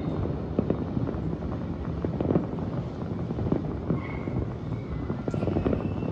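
Many distant fireworks bursting across a city at once, heard as a continuous rolling rumble dotted with scattered pops and booms.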